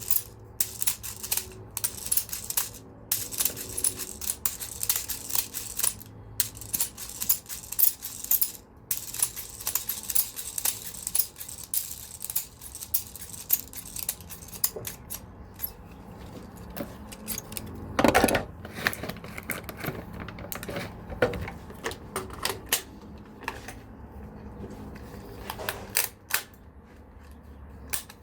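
Airsoft BBs being loaded with a speed loader into a mid-cap magazine: a rapid run of small clicks and rattles that thins out about halfway through, with one louder knock about 18 seconds in.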